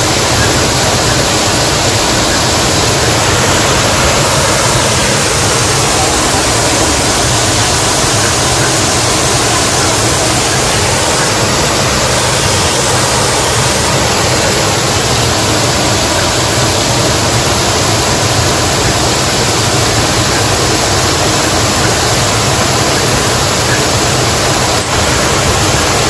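Man-made waterfall pouring into a pond: a loud, steady rush of falling water.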